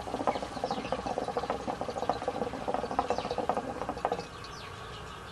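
Water bubbling in the glass base of a Sahara Smoke Solaris hookah as smoke is drawn through the hose: a fast, even run of small bubbles that stops about four seconds in, when the draw ends.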